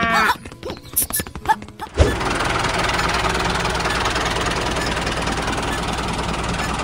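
A small engine starts suddenly about two seconds in and runs steadily, with a low hum under an even mechanical noise.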